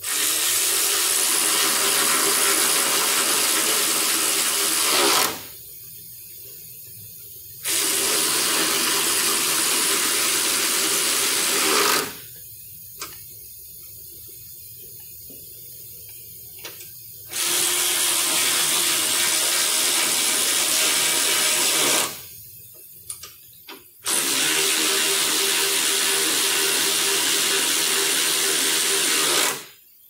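Power ratchet spinning a socket on a long extension, run in four long bursts of about five seconds each with short pauses between, with a few small tool clicks in the pauses.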